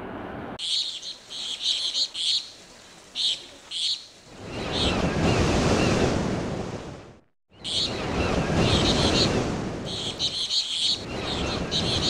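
Waves washing in and falling back twice, with birds chirping in short repeated bursts over them.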